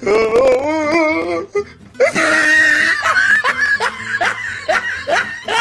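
A person laughing hard in quick repeated bursts from about two seconds in, after a wavering, drawn-out vocal cry at the start.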